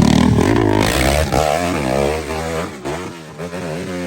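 Dirt bike engine revving up and down repeatedly, its pitch rising and falling several times, growing quieter toward the end.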